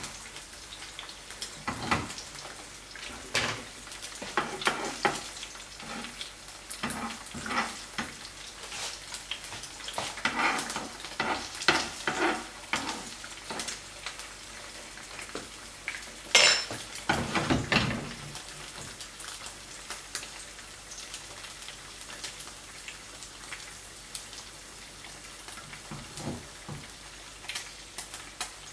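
Eggs sizzling in a non-stick frying pan on a gas hob, with a utensil scraping and tapping in the pan and the pan knocking on the burner grate; the loudest clatter comes a little past halfway.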